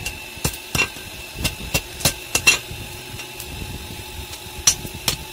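Hand hammer striking a red-hot steel bar on a steel anvil, forging a chisel: sharp metallic strikes at an uneven pace, about six in the first two and a half seconds, then a pause of about two seconds before two more near the end.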